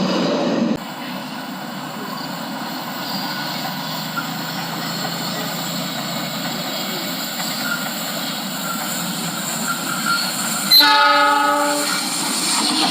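A train running on the rails with a steady rushing noise, and about eleven seconds in one short blast of the locomotive's horn, the loudest sound.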